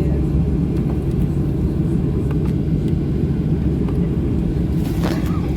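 Boeing 737-800's CFM56-7B jet engines at high power heard inside the passenger cabin during takeoff: a steady, loud low rumble. A short sharp noise about five seconds in.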